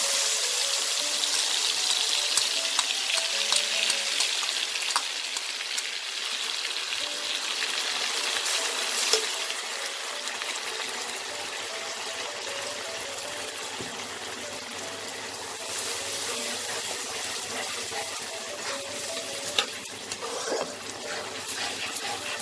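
Wet spice paste sizzling in hot oil in a kadai, loudest just after it is poured in and slowly easing, with a metal spatula scraping and clicking against the pan as the paste is stirred.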